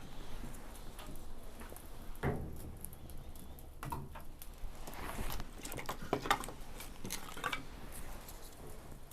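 Wood fire of split logs crackling, with irregular sharp pops scattered through it. The larger logs hiss as excess moisture cooks out of them.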